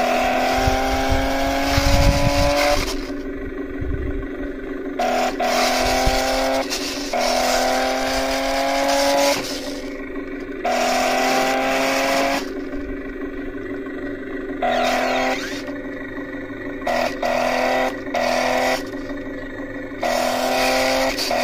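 Electric drive motors of a toy RC stunt car whining in repeated short bursts, starting and stopping abruptly, the pitch rising slightly through each burst as the motors speed up.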